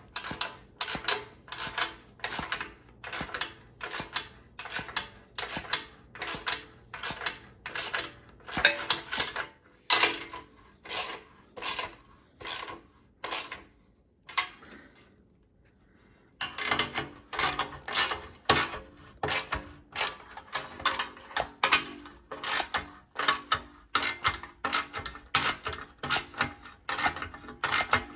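Hand ratchet wrench being worked back and forth to tighten the bumper bolts, in an even run of clicking strokes about two a second. It stops for about two seconds a little past the middle, then starts again.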